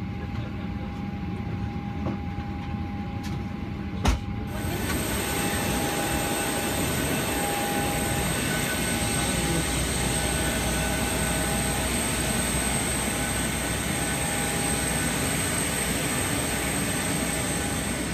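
Steady hum inside a Boeing 737-800 cabin. A sharp click about four seconds in, then the parked 737-800 heard from the apron: a steady rushing noise with a constant high whine.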